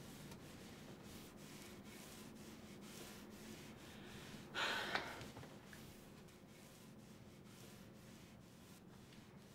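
A single short, heavy breath from a woman, about four and a half seconds in, over faint room tone.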